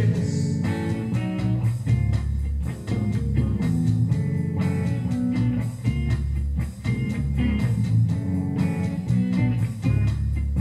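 Instrumental passage of a rock song with no vocals: guitar lines over bass guitar and a drum-machine beat.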